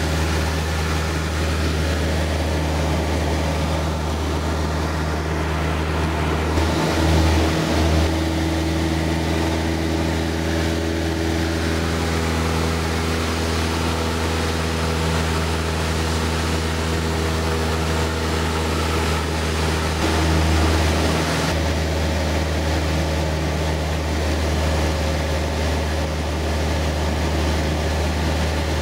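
Cessna 172's piston engine and propeller droning steadily, heard from inside the cockpit in flight, with brief louder swells about seven seconds in and again about twenty seconds in.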